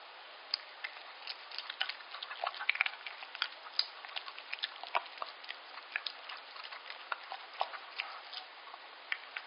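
Yorkshire Terrier eating soft liver pâté from a stainless steel bowl: irregular wet clicks and smacks of chewing and licking, a few each second.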